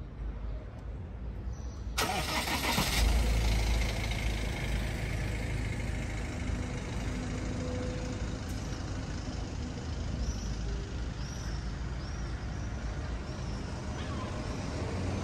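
Street traffic: motor vehicle engine noise with a steady low rumble. It starts abruptly and loudly about two seconds in. Short high chirps repeat over it in the second half.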